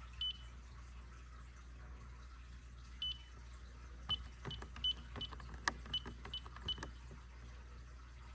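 Ademco alarm keypad beeping as keys are pressed to bypass zones: short high beeps, one near the start, one about three seconds in, then a run of about seven quick beeps with faint key clicks between them.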